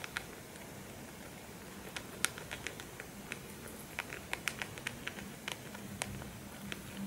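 Guinea pig crunching a dried pea treat, with small irregular crisp crunches that come quickly from about two seconds in.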